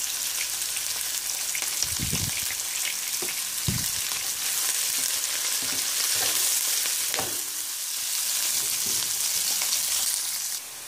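Sliced onions sizzling steadily in hot oil in a nonstick frying pan as they are being browned. A silicone spatula stirs them, giving a few soft knocks and scrapes against the pan.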